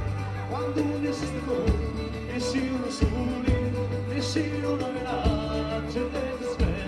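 Live Calabrian folk-dance music, a tarantella played by a band. Held melody notes run over a bass line, with sharp drum hits.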